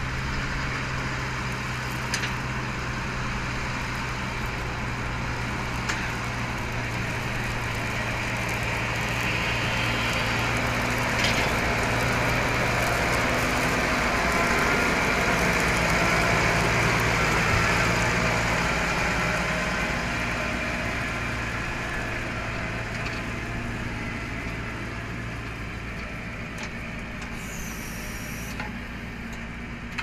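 Electric kindling-making machine running: the motor and belt drive keep up a steady low hum while the rubber-tyred feed wheel drives boards past the blade, adding a rasping noise of wood being cut into kindling sticks that grows loudest midway and eases off toward the end.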